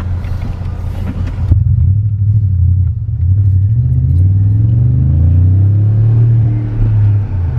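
BMW engine pulling under acceleration, running on freshly replaced ignition coil packs and heard from inside the car. A low drone that rises in pitch from about three seconds in, holds, then dips briefly near the end.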